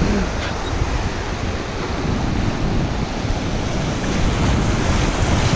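Ocean surf washing up the beach, with wind buffeting the microphone. The wash grows a little louder from about four seconds in as foam rolls up close.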